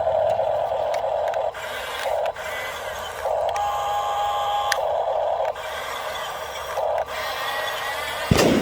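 Small electric motors and gearboxes of a radio-controlled construction model whirring, stopping and starting again several times as it is driven, with one held whine in the middle. A sharp knock near the end.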